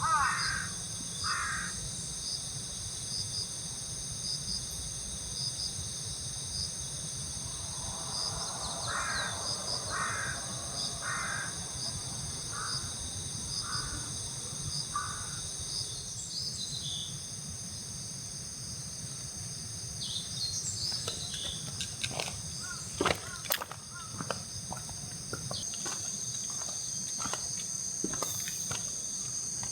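Crows cawing: a quick burst of calls at the start, then a run of about seven caws spaced under a second apart, over a steady high insect chorus. In the last third, scattered sharp clicks and knocks.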